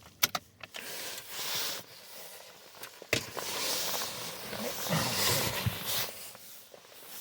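Handling noise from getting at a vehicle's fuse box: a few sharp clicks near the start, a sharp click about three seconds in, then scraping and rustling.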